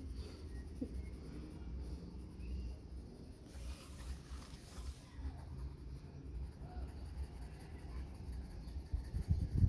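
Faber-Castell Ecolápis neon coloured pencil scratching faintly on paper in back-and-forth shading strokes, filling in a circle of colour.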